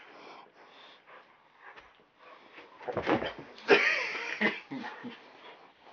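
Wheezy, snuffling breathing and scuffling during rough floor play between a man and dogs, faint at first and loudest in a burst about three to four and a half seconds in.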